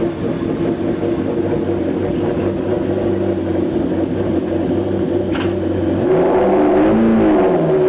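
McLaren MP4-12C GT3's twin-turbo V8 idling steadily, then revved once about six seconds in, the pitch rising and falling back within about two seconds.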